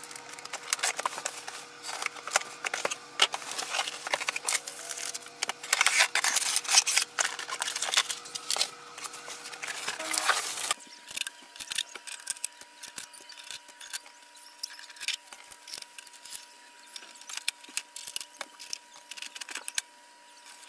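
Scissors slitting packing tape, then a cardboard box and its plastic and foam packing being handled: dense crackling rustles and clicks, which become sparser and quieter about halfway through.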